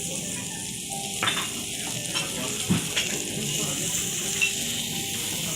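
Lamb and vegetables sizzling steadily on a hot jingisukan grill, with a few light clicks.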